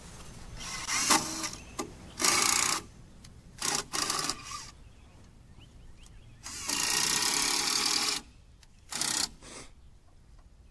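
Power drill driving screws into the timber joists of a shed floor frame, running in about six separate bursts, the longest lasting nearly two seconds.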